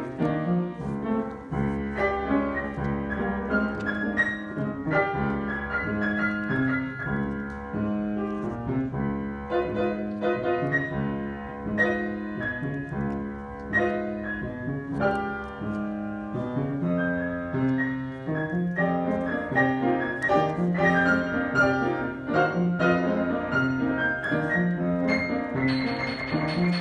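Piano playing continuously, chords under a moving line of notes.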